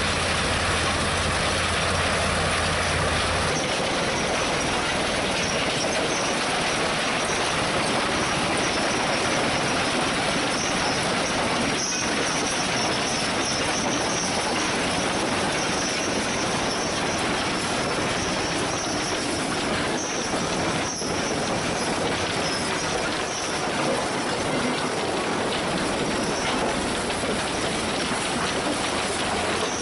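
Gipokombi RC 130 FDR mobile crusher running under load, with broken concrete blocks clattering and grinding in its vibrating feed hopper. A steady low hum drops out about three and a half seconds in, and a few heavier knocks stand out later.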